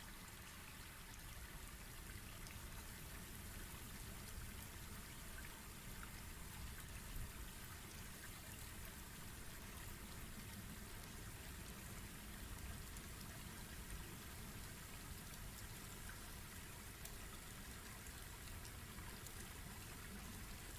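Faint, steady background hiss with a few soft ticks, a rain-like noise bed and no speech or music.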